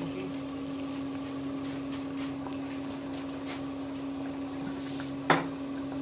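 Rice-flour kaipathiri deep-frying in hot oil in an iron kadai: a steady sizzle with faint crackling, over a constant low hum. A single sharp knock about five seconds in.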